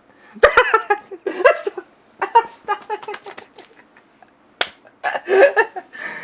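Wordless vocal sounds and laughter, with a single sharp click about four and a half seconds in.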